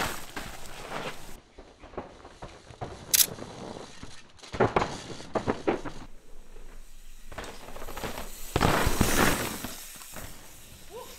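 Mountain bike riding over a rocky trail covered in dry leaves: tyres crunching through leaves and over stones, with knocks and rattles from the bike, coming in several separate passes. The loudest is a long crunching pass about three-quarters of the way through.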